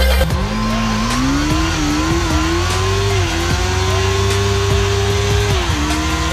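Honda CBR 600 inline-four engine held at high revs during a burnout, the rear tyre spinning on the asphalt with a hiss. The revs climb about half a second in, stay high with small wobbles, and drop a step near the end.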